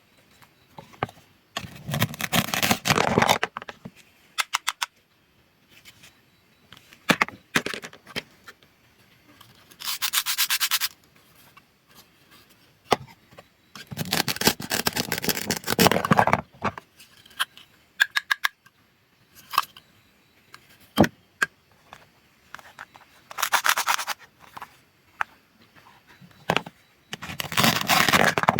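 Toy fruits and vegetables being cut apart, with five loud rasping tears of one to two seconds each, typical of Velcro-joined pieces being pulled apart. Short clicks and taps fall between them as the pieces and the toy knife are handled.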